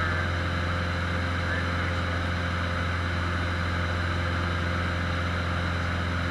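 Cessna 150's four-cylinder Continental O-200 engine and propeller droning steadily in flight, heard inside the cabin.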